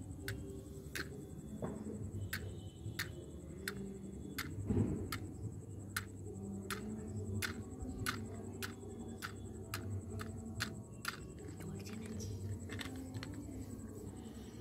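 A matchstick struck again and again on the side of a matchbox, a short scratch about twice a second.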